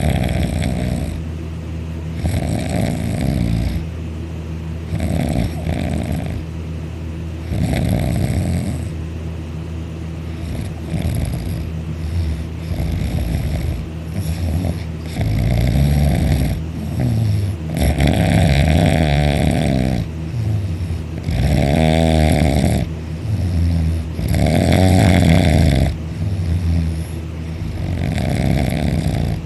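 Loud snoring in deep sleep, one snore roughly every two to three seconds, some with a rattling flutter.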